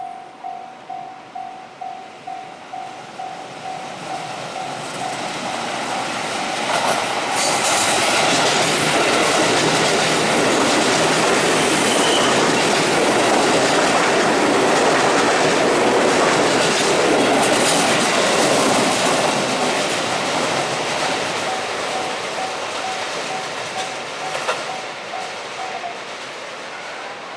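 Japanese level-crossing warning bell ringing a fast steady ding-ding, about two to three strikes a second. An electric commuter train then passes close by for about fifteen seconds, its wheels clattering over the rail joints, and fades away while the bell keeps ringing, stopping shortly before the end.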